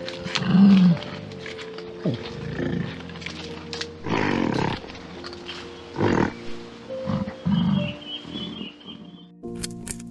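A big cat growling in several short calls over background music with steady held notes.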